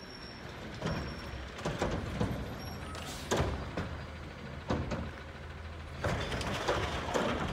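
A garbage truck's engine running at a distance with a steady low rumble, broken by several sharp knocks and bangs from the truck as it works along the curb where the carts are set out.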